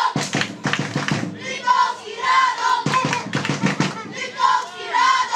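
Football supporters' sung chant, the same phrase coming round about every three seconds, with quick rhythmic claps between the phrases.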